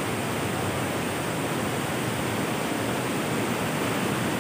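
Steady rush of a swollen, muddy river pouring over rocky rapids and falls in spate after heavy rain.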